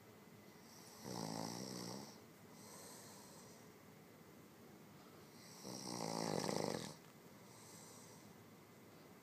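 A man snoring in deep sleep: two loud snores, each about a second long and about five seconds apart, the second louder. Each is followed by a softer breathy sound.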